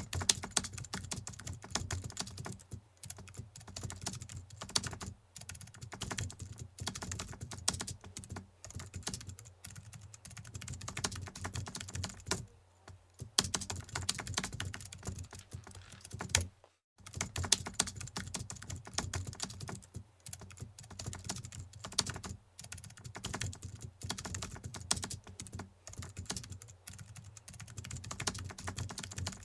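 Computer keyboard typing, a quick continuous patter of key clicks with two short breaks past the middle.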